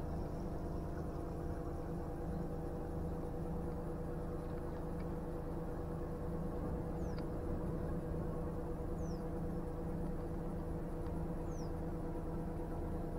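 A river cruiser's inboard engine running steadily at slow cruising speed, a low rumble with a steady hum. A bird's thin, falling call cuts through three times in the second half.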